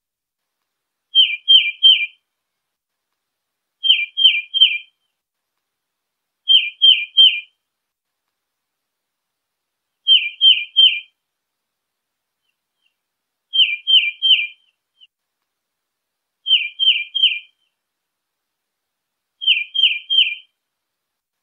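Tufted titmouse whistling a phrase of three quick falling notes, repeated seven times at intervals of about three seconds, with silence between phrases.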